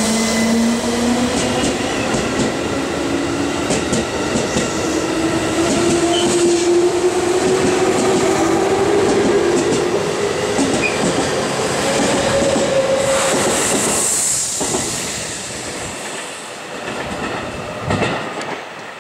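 JR Central 211 series electric train pulling out of the station. Its motor whine rises steadily in pitch as it accelerates, and its wheels click over the rail joints. A short high hiss comes about 14 seconds in, and the sound then fades.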